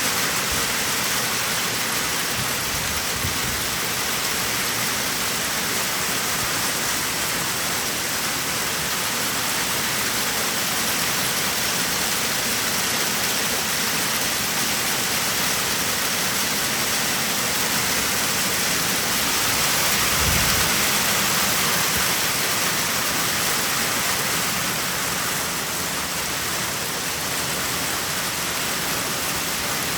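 Heavy rain mixed with hail pelting down in a steady, dense hiss. A short low rumble swells up about twenty seconds in.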